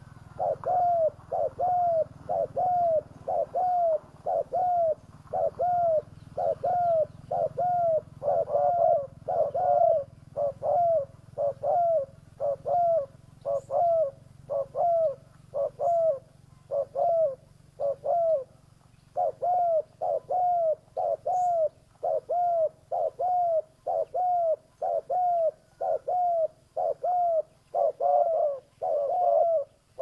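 Spotted dove giving a long, steady run of short, arched coos, about one and a half to two a second, with a short break a little past the middle: the calling of a decoy (pikat) dove used to lure wild doves.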